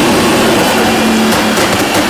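Tuned Nissan GT-R R35's twin-turbo V6 running loud on the move, with a steady tone that drops away about one and a half seconds in.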